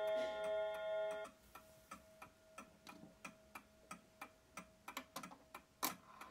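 Ringing of a 1930s Mauthe clock's bim-bam strike rods, cut off about a second in, then the movement ticking about three times a second as the minute hand is pushed round by hand, with a sharper click near the end.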